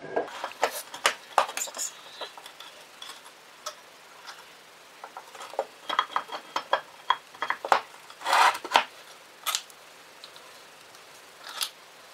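Scattered metallic clinks, taps and knocks as the end cover of an old AC shunt motor is worked back onto its frame by hand and a bolt is started, with a louder scrape about eight seconds in.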